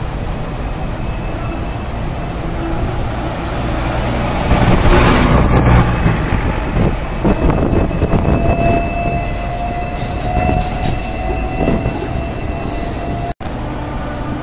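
Hong Kong double-decker electric tram passing close on a curved track, its wheels rumbling and clattering on the rails, loudest about five seconds in. A thin steady squeal runs through the second half.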